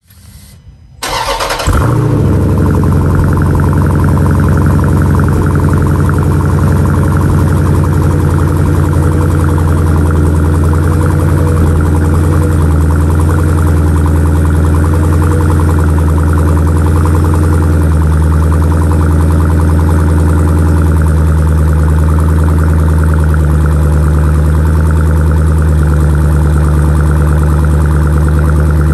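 2022 Dodge Durango SRT's 6.4-litre HEMI V8 cold-starting on its stock exhaust, heard at the tailpipes: it catches about a second in with a brief rev, then settles into a loud, steady fast idle.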